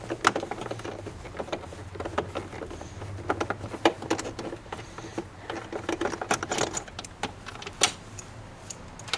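Irregular metallic clicks and small knocks of a hand tool working bolts loose on a plastic engine-bay piece, with loose parts rattling as they are handled.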